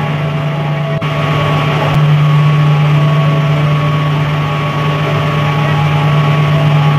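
Steady mechanical hum: a loud, even low drone with a few fainter steady higher tones above it, getting slightly louder about two seconds in.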